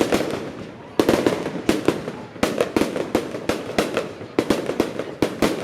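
Fireworks bursting in a rapid, irregular string of sharp bangs, several a second, each trailing off in a short echo.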